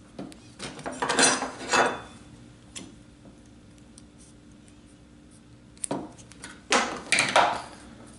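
Electrical tape being pulled off its roll and cut, with scissors and pliers clattering on a metal workbench. The sound comes in two crackly, rasping bursts, one about a second in and one around six to seven seconds, with a single click between them.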